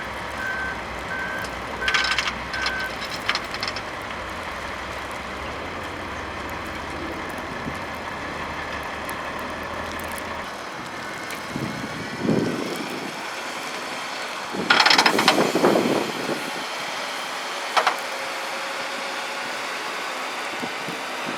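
Volvo L70G wheel loader's reversing alarm beeping for the first few seconds over a low engine rumble, with some clunks. The engine rumble drops away about ten seconds in. A loud cluster of bangs and rattles comes around fifteen seconds in, and a single knock shortly after.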